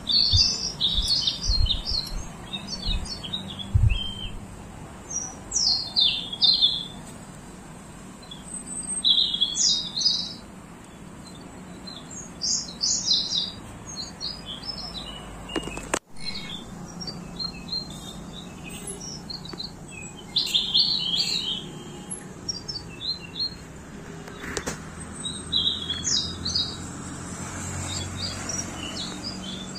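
Small birds chirping in quick clusters of high notes every second or two. The sound cuts out for an instant about halfway through.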